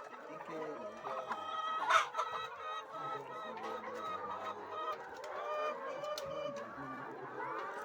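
A flock of laying hens clucking, many calls overlapping, with a few sharp clicks, the loudest about two seconds in.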